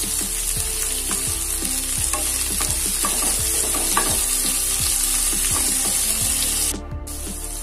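Sliced onions, garlic and dal sizzling in hot oil in a nonstick kadai while a wooden spatula stirs them, with frequent short knocks and scrapes of the spatula against the pan. About seven seconds in there is a brief break, after which the sizzle goes on a little quieter.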